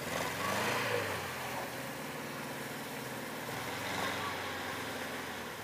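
Engine of an SUV converted to rubber tracks running as it crawls through slush, a little louder in the first second, with the tracks churning through the wet snow.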